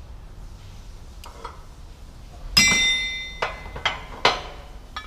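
Hammer striking metal: four blows a little over half a second apart, the first loudest and ringing on.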